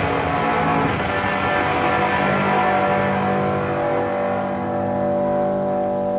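Music: steady held chord tones under a loud rushing, hissing noise wash that swells in just before and cuts off shortly after.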